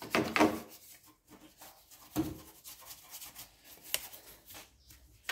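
Hand wiping and rubbing on a car's engine bay surfaces during detailing: a few short rubbing strokes, near the start, about two seconds in and about four seconds in, with quiet gaps between.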